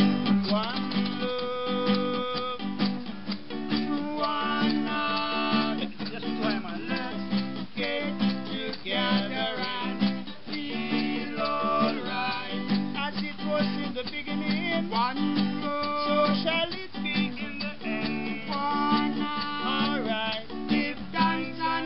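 Acoustic guitar strummed in a reggae rhythm, with a man singing along.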